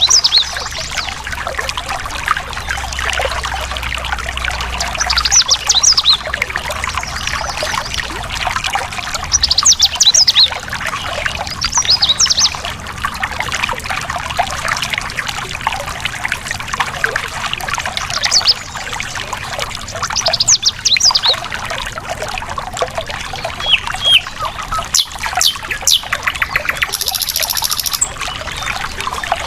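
Stream of water flowing over rocks, a steady trickle and splash, with wild songbirds singing short bright phrases every few seconds and a high buzzing trill near the end.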